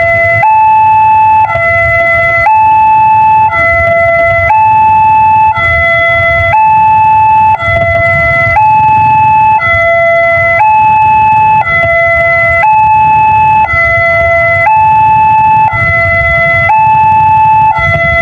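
Railway level-crossing warning siren sounding a loud two-tone alarm that alternates between a high and a low tone about once a second, with a low rumble underneath.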